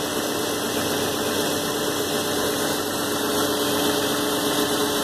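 2007 Nissan Maxima's 3.5-litre V6 idling, with a steady humming whine over the engine noise. The whine is the unexplained noise the owner is asking about; he rules out the alternator, which he has just replaced.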